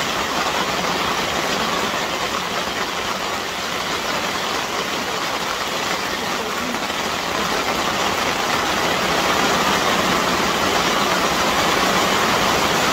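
Hail drumming on the plastic film of a polytunnel greenhouse, heard from inside as a loud, dense, steady rush that swells a little past the middle.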